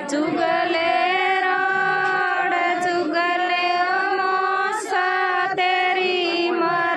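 Women's voices singing a traditional wedding song in long, drawn-out held notes.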